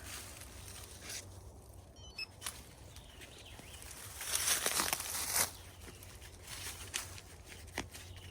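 Digging in soil and leaf litter: a few rustling, scraping strokes, the longest and loudest about four to five seconds in, with a few sharp clicks in between.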